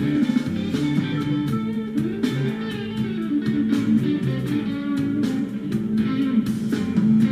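Background music played on guitar, plucked notes over a steady bass line in a bluesy style.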